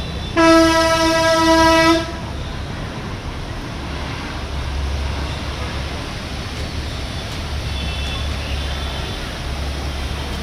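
A vehicle horn gives one steady honk of about a second and a half, near the start. Under it and after it, a steady low engine rumble and the wash of vehicles driving through floodwater.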